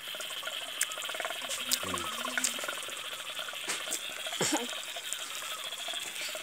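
A young child chewing a mouthful of boiled egg close to the microphone, with small wet mouth smacks and clicks scattered through, over a steady high background hiss. There are a couple of brief low vocal sounds from the child, one falling in pitch about four seconds in.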